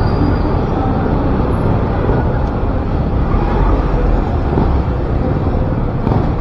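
Steady outdoor traffic noise mixed with wind buffeting the microphone.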